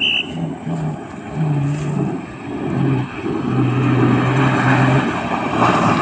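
Off-road 4x4's engine revving in uneven bursts of held throttle as it drives up a muddy track, getting louder over the last few seconds as it comes closer.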